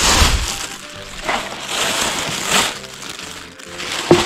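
Clear plastic bag rustling and crinkling in the hand as a plastic bottle and litter are handled inside it, swelling in bursts, with a sharp knock near the end.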